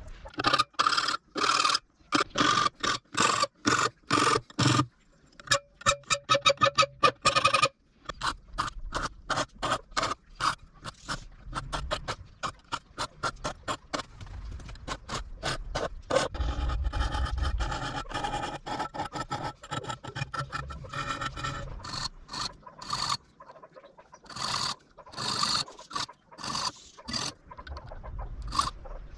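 Repeated hand-filing strokes on a steel knife blank: rough scraping a few strokes a second, in runs broken by short pauses.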